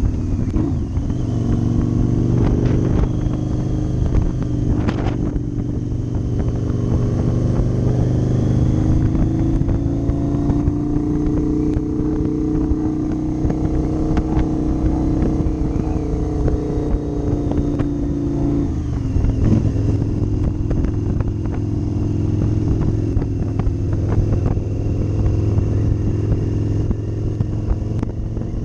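Cruiser motorcycle engine running under way at road speed. Its note climbs slowly through the middle, drops abruptly about two-thirds of the way through, then holds steady.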